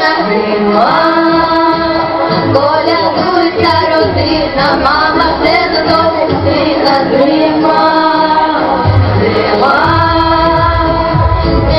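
Song: female voices singing over musical accompaniment, the sung notes gliding up into long held tones.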